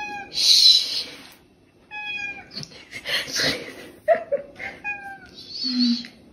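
A domestic cat meows three short times, with louder bursts of hiss-like noise between the meows.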